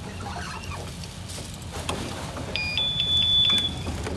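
A single high electronic beep about a second long, from kitchen equipment, with a short chirp just before it. A few sharp metallic clicks of handling come before the beep, over a steady low hum.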